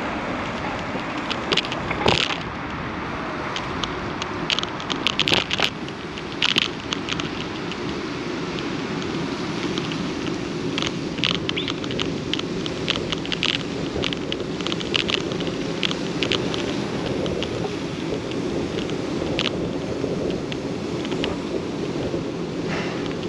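Steady rolling and wind noise of a ride along paved streets and a park path, with irregular crackling clicks and rattles, thickest in the first few seconds and again in the middle.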